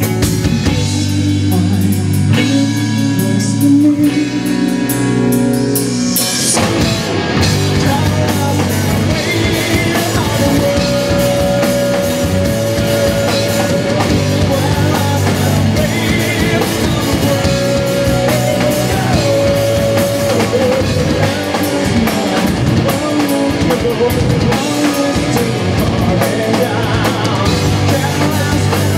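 Live rock band playing: electric guitars, bass guitar, drum kit and a singer. The first few seconds are held chords; about six seconds in, the drums come in and the full band plays on loudly and steadily.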